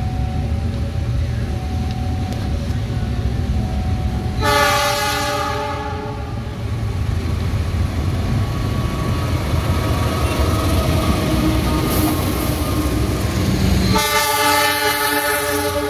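KAI CC 206 diesel-electric locomotive hauling passenger coaches, its engine giving a steady low rumble. It sounds a multi-tone horn chord for about a second and a half, about four seconds in, and another horn blast begins near the end.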